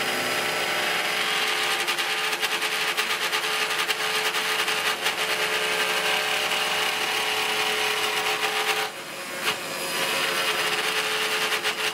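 Mini CNC router's spindle running a single-flute carbide end mill through thin plywood, a steady whine under a rough cutting rasp. The bit is cutting through the plywood into the wasteboard beneath. The cutting noise eases for about a second just before nine seconds in, then picks up again.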